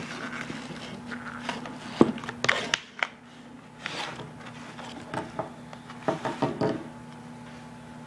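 Handling noise from a plastic Viking Compact Power Pack jump starter and its storage case: scattered knocks, rubbing and rustling as it is lifted out. The sharpest knock comes about two seconds in, and there is a quick run of clicks near the end.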